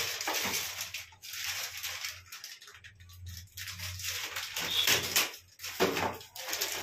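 Thin plastic packaging bag crinkling and rustling in irregular bursts as the cistern's float valve with its orange ball is handled and unwrapped from it.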